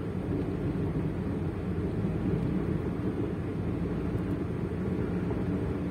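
Steady engine and road noise inside the cabin of a moving Daewoo Matiz, its small three-cylinder engine pulling with the air-conditioning compressor switched off. Any chirping, which the owner suspects is a slipping drive belt, is at most faint under the rumble.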